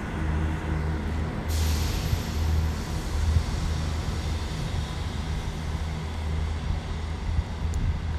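Two coupled Class 159 diesel multiple units pulling away, their underfloor Cummins diesel engines running with a steady low drone. A hiss comes in about a second and a half in and carries on.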